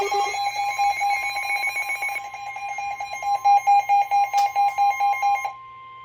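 Weather radio alert alarm beeping rapidly as a severe thunderstorm warning comes in over NOAA Weather Radio, with the steady 1050 Hz warning alarm tone underneath. The beeping stops about five and a half seconds in, leaving the steady tone on its own, fainter.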